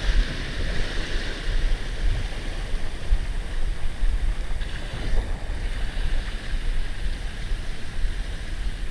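Small waves washing up and sliding back over a shallow shoreline, with wind buffeting the microphone.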